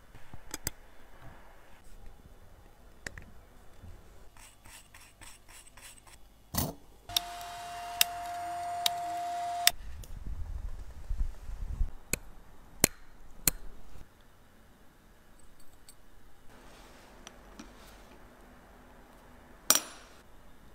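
Small metal clicks and taps of watchmaking tools and watch parts being handled on a workbench, with a quick run of rapid clicks and a knock partway through. A small machine runs with a steady whine and hiss for about two and a half seconds, and a sharp click comes near the end.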